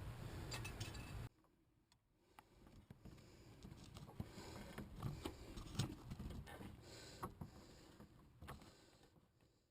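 Mostly near silence, with scattered faint clicks and brief handling noises of small plastic headlight-bulb parts being worked by hand.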